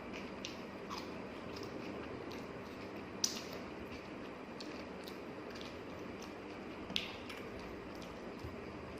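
A person chewing food with the mouth open, a run of short wet smacks and clicks over a steady low background hum, with two sharper clicks about three seconds in and again about seven seconds in.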